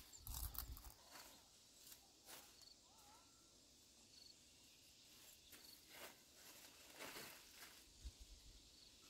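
Faint, sparse rustling and snapping as long red bean pods are picked by hand from leafy vines, over faint high insect chirps that come every second or two.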